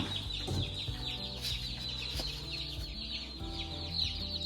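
A box of Cornish cross meat chicks peeping nonstop: a dense chorus of many short, high, falling cheeps, over a low steady hum.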